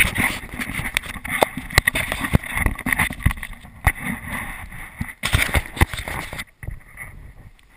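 Handling noise from an action camera being gripped and moved: a string of irregular knocks and rubbing against the housing, stopping about six and a half seconds in.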